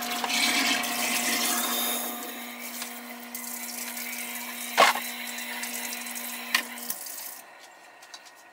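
Kitchen tap running into the sink as a pot is rinsed under it, loudest in the first couple of seconds, with a steady low hum beneath. A sharp clunk of the pot about five seconds in is the loudest moment, and a lighter knock follows. The water is shut off near the end.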